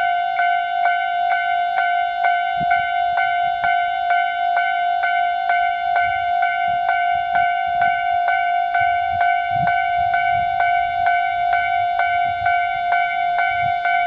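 Japanese railway level crossing alarm ringing: a steady electronic bell tone struck over and over, about twice a second, warning that a train is coming.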